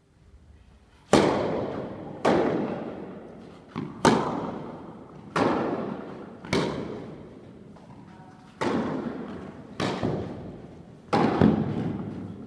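Tennis rally: a serve, then a string of racket strikes on the ball mixed with ball bounces, about one every second, each sharp pop ringing out in a long echo of a large tennis hall.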